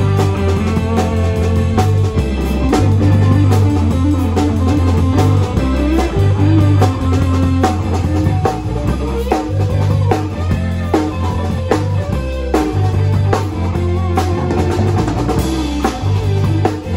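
A live rock band playing: a drum kit keeping a steady beat with electric guitar over a repeating low bass line.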